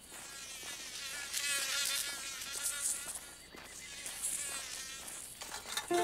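Buzzing of a mosquito in flight, a cartoon sound effect, its whine wavering up and down in pitch as it circles and lands.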